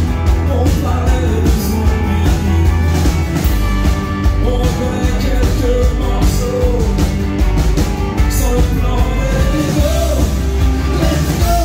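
Live rock band playing loudly through a PA: strummed acoustic guitar, drum kit with a heavy low end, and trumpet, with a wavering melody line over the top.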